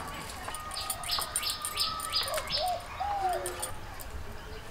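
Wild birds singing: a quick run of about five descending whistled notes, followed by a few lower, arching call notes.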